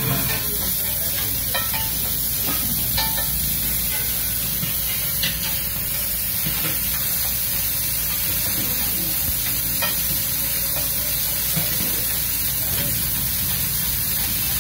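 Egg korma mixture sizzling in hot oil on a large flat griddle while a steel slotted spatula stirs and scrapes it, with scattered light clicks of the spatula against the metal.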